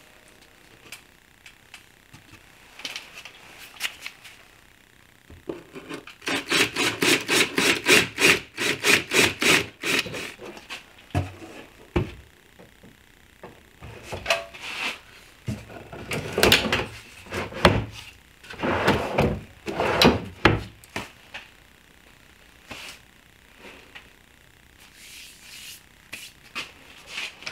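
Wooden drawers on metal ball-bearing slides being pulled open and pushed shut, with knocks as the drawer fronts close against the cabinet, rubbing slides, and a run of quick, even clicks earlier on.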